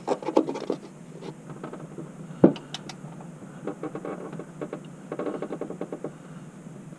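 Hand-tool work on a car engine: runs of light, quick clicks and small metal handling noises, with one sharper knock about two and a half seconds in.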